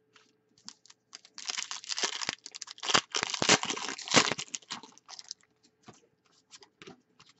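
A hockey card pack's foil wrapper being torn open and crinkled: a dense crackling from about a second and a half in until about five seconds, followed by a few faint clicks.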